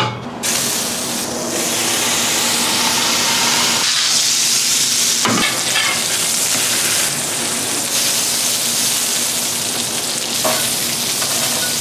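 Smash burger patty sizzling on a hot, oil-seasoned steel flat-top griddle. The sizzle starts suddenly as the meat goes down and then runs on steadily, with a few short scrapes and taps of a metal spatula pressing the patty.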